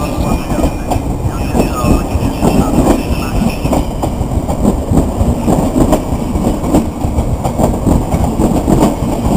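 Intercity passenger coaches rolling past at close range as the train pulls out, a steady rumble with repeated clacks of the wheels over rail joints.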